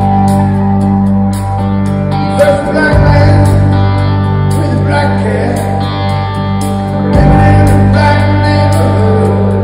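Live rock band playing, heard from the audience in a theatre: strummed guitars, drums and a low bass line that shifts note every few seconds, with a man singing over it.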